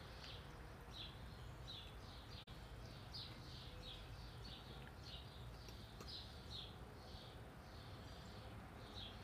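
Faint bird chirping: short high chirps repeated about two or three times a second, over a low steady background rumble.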